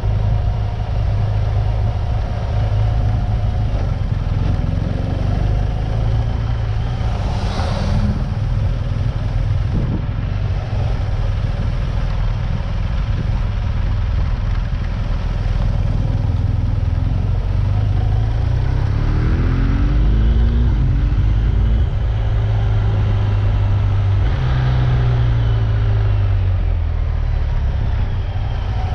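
Vehicle engine running under way over a steady heavy rumble. Its pitch rises and falls a couple of times in the second half as the revs change.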